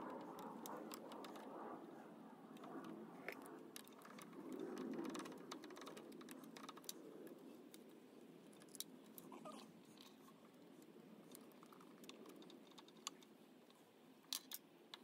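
Faint light clicks and scrapes of a screwdriver working the screws that hold the old points and condenser on a Honda CT70 stator plate.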